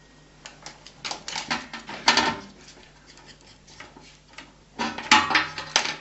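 Irregular clattering and tapping of small hard objects, in two louder spells: one about a second in, one near the end.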